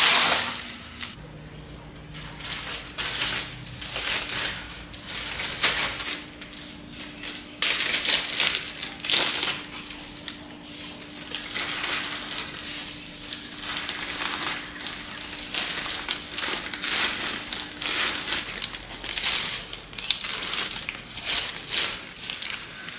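Hands scooping and stuffing crisp sun-dried preserved radish greens (meigancai) into plastic bags: irregular dry rustling and crackling of the leaves with plastic bag crinkling.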